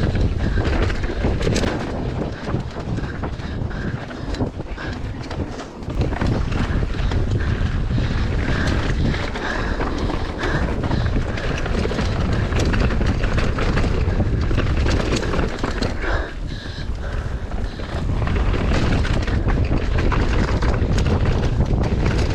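Mountain bike descending a dirt trail at speed: a steady rumble of tyres on dirt under wind buffeting the microphone, with frequent sharp clicks and rattles from the bike.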